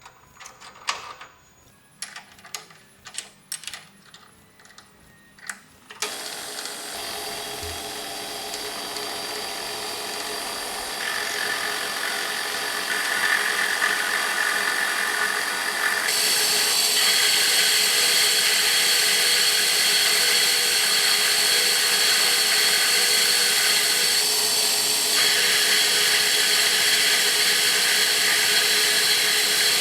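A few sharp clicks and knocks of metal parts being handled, then a metal lathe starts about six seconds in and runs steadily, growing louder over the next ten seconds as the vise handle is turned.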